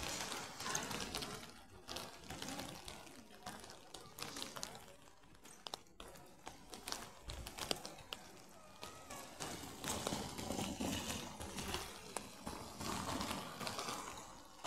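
Footsteps on wet paving stones against street ambience, with the level rising and falling about once or twice a second.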